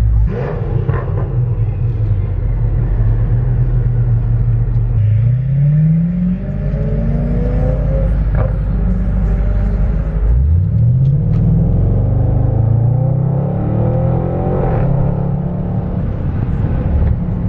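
V8 car engine heard from inside a car's cabin, pulling away under acceleration: its pitch climbs about five seconds in and again about ten seconds in, then holds steady while cruising.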